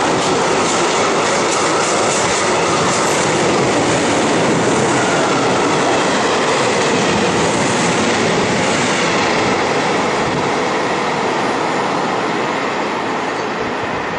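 Freight train of covered goods wagons rolling past close by: a steady, loud noise of steel wheels running on the rails, fading over the last few seconds as the end of the train draws away.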